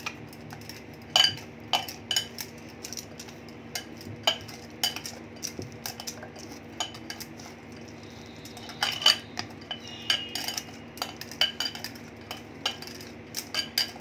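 Sharp, irregular glassy clinks as maida dough is kneaded by hand with oil in a glass bowl: the kneading hand's glass bangles knock together and against the bowl, in clusters with short gaps.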